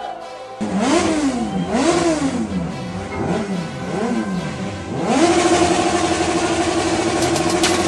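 Sport-bike engine revved in repeated rising and falling blips, then held steady at high revs from about five seconds in, with a hiss over it as the rear tyre spins in a smoky burnout.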